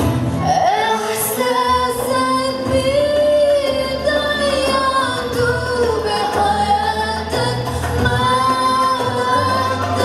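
A woman singing solo into a microphone in long held, wavering notes, over a musical accompaniment with a steady low bass.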